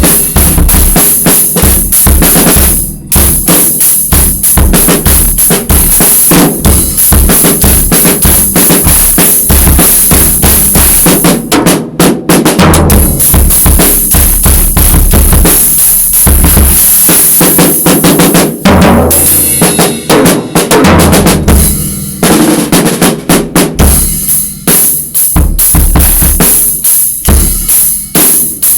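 Full drum kit played freestyle: fast snare and tom strokes over bass drum kicks, with cymbals ringing and short rolls.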